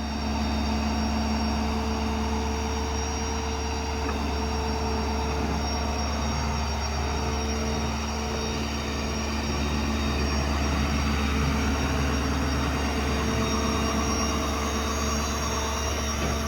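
The Ford F-550's 6.7 Power Stroke diesel is running and driving the hydraulic pump that works the Stellar 7621 crane. It makes a steady drone with constant higher tones over it throughout.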